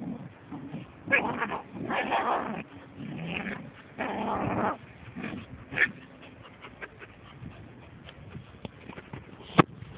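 Caucasian Shepherd Dog puppies growling and whimpering in four rough bursts over the first five seconds, then quieter, with a sharp click near the end.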